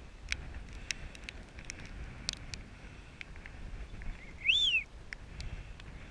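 A single short whistle, rising then falling in pitch, about four and a half seconds in: a falconer's recall whistle calling a Harris hawk back to the gloved fist.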